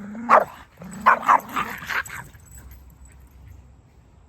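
A dog barking in a quick series of about five or six short barks and yips, with a whining tone under the first ones; this is excited play barking over a toy. The barking stops a little over two seconds in.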